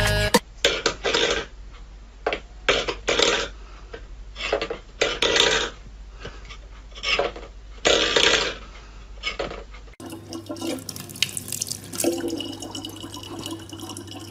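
A metal pet bowl clattering and scraping on a wooden floor in short, irregular bursts. About ten seconds in, a tap starts running in a thin stream into a plastic water bottle.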